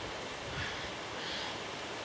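Steady wind noise in leafy trees, with two faint, brief sounds about half a second and a second and a half in.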